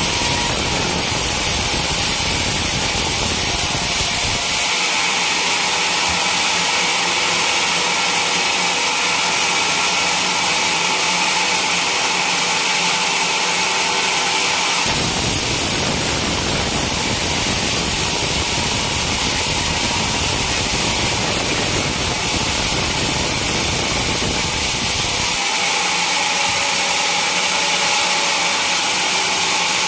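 Sawmill saw running and cutting through a teak log: a loud, steady machine noise with a strong high hiss. The low rumble under it drops away and returns abruptly a few times.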